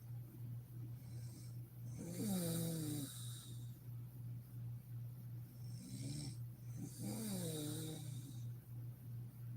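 A woman snoring in her sleep: two long snores about five seconds apart, each falling in pitch, with fainter breaths between them, over a steady low hum.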